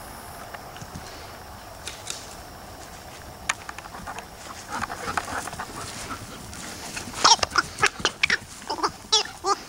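Alaskan Malamute puppy playing with a ball toy: a run of short, sharp sounds. They are scattered at first, then come thick and loud in the last three seconds as she lunges at the ball.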